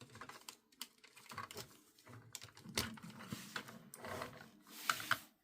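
Hard plastic toy parts clicking and rattling as they are handled, in irregular clicks with two sharper knocks, one in the middle and one near the end.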